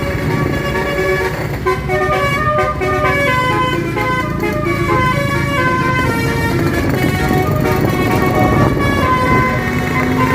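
Bus's multi-tone basuri (telolet) horn playing a tune. Its notes step up and down a few times a second over the low rumble of the running bus.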